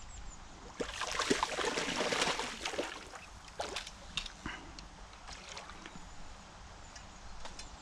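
A hooked brown trout splashing at the surface close to the bank while being played on a rod. There is a burst of splashing about a second in that lasts around two seconds, then a few smaller splashes.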